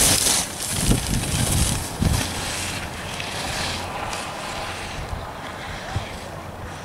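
Skis carving and scraping over packed snow, with wind rumbling on the microphone. The hissing scrapes come in surges through the first two seconds, then settle to a softer hiss.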